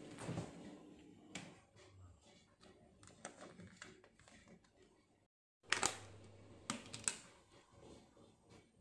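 Faint handling sounds: a refrigerator door is opened and a plastic food tub is taken off a shelf and set down on a counter, making a few light clicks and knocks. The loudest knocks come about two thirds of the way through.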